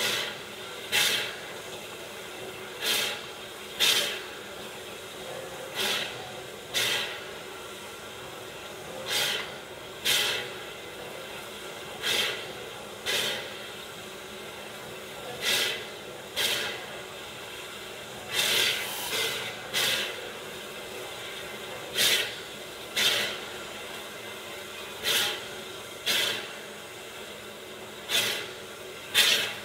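Idling steam equipment: short, sharp puffs of exhausting steam in pairs about a second apart, the pairs repeating roughly every three seconds over a steady hiss.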